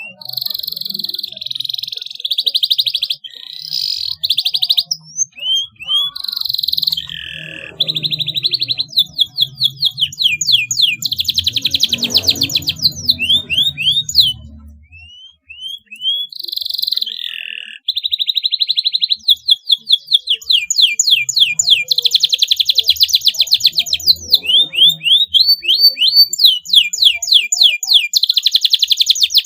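Domestic canary singing a long, varied song of fast trills and rolls of repeated notes, mixed with rising whistled notes and short buzzy phrases, with a short break about halfway through.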